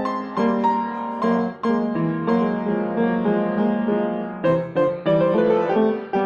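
Piano played solo: chords and a melody line struck note by note and left to ring.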